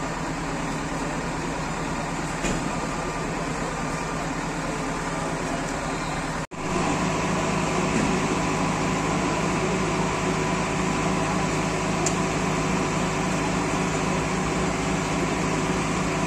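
Steady engine hum of machinery running, with a sudden brief gap about six and a half seconds in, after which the hum is louder.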